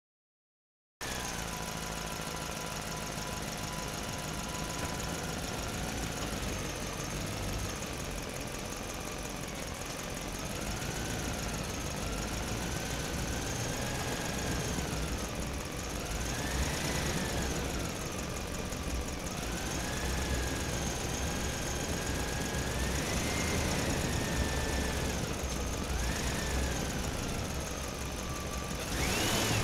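Radio-controlled toy trucks and a tracked excavator driving: electric motors and gearboxes whining, the pitch rising and falling as the throttle changes, over a steady low engine-like rumble. The sound starts abruptly about a second in.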